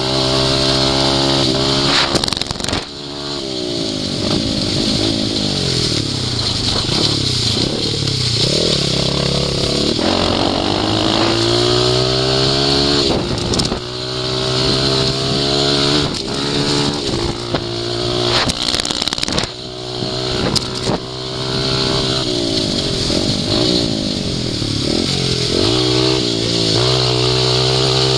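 Dirt bike engine revving hard while riding, its pitch climbing and dropping over and over as the throttle opens and closes, with a few sharp knocks along the way.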